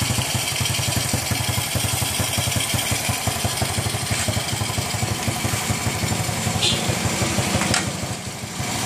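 Rusi motorcycle engine idling steadily, with a fast, even firing beat, while its charging circuit is tested with the regulator's output wired straight to the battery. It dips briefly in level near the end.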